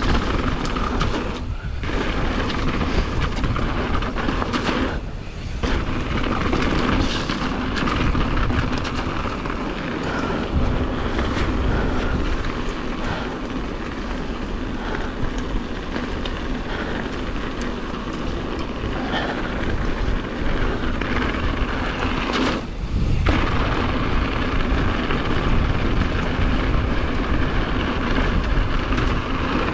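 Mountain bike riding fast down a loose gravel trail: tyres crunching over stones and the bike rattling, with wind buffeting the action camera's microphone in a heavy low rumble. The noise drops out briefly three times.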